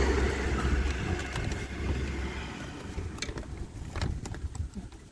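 Plastic dashboard trim being worked loose by hand: scraping and rustling with scattered light clicks and taps, over a low rumble that fades out about halfway through.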